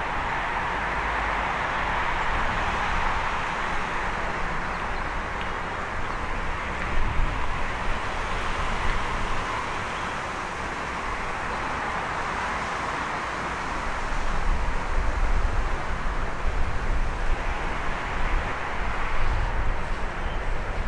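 Steady hum of city traffic. Low, uneven rumbling grows louder about two-thirds of the way in.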